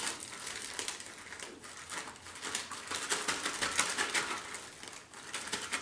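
Strawberries being mashed by hand inside a plastic zip-top bag with soapy salt-water extraction liquid: the bag crinkling and the pulp squelching as a dense, irregular run of small crackles.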